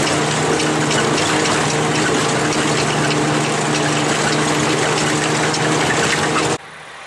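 Log truck's engine running steadily under a loud rushing hiss. The hiss cuts off suddenly near the end, leaving a quieter engine hum.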